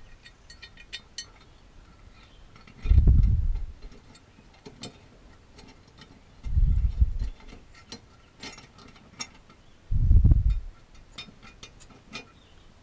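Ratchet wrench clicking in short runs while turning a mower blade bolt under the deck. Dull low thumps come about every three to four seconds, three times.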